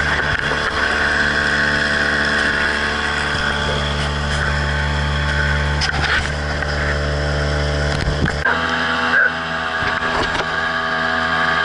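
Tohatsu-built Mercury 2.5 hp single-cylinder two-stroke outboard running steadily under way, pushing a small boat. About eight seconds in, the sound changes abruptly to the same motor after the power modification: a shortened carburettor throttle slide and a lengthened throttle-lever slot, said to raise it to about 3.5 hp.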